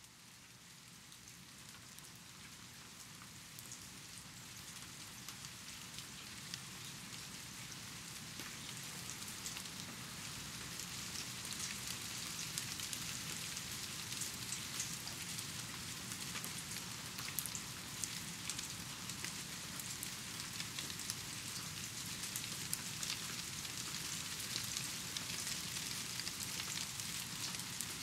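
Steady rain, an even hiss with many individual drops ticking close by, growing louder over the first ten seconds or so and then holding steady.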